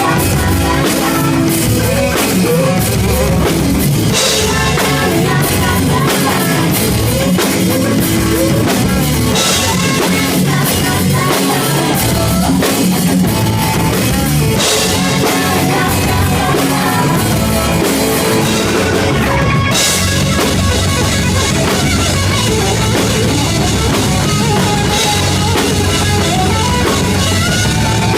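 Live rock band playing loud and steady, with drum kit and electric guitar to the fore.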